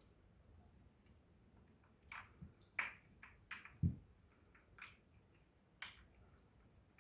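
A dog biting and licking at ice cubes: a scatter of short, sharp clicks and wet crunches, with one low thump just before the middle.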